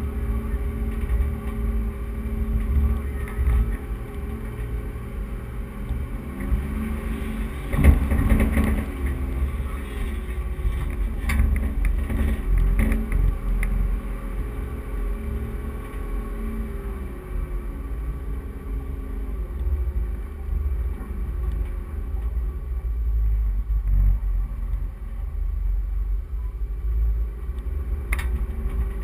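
Four-wheel-drive vehicle driving over soft sand, its engine running with a heavy low rumble and a pitch that rises and falls as the revs change. There is one sharp loud knock about eight seconds in and a smaller click near the end.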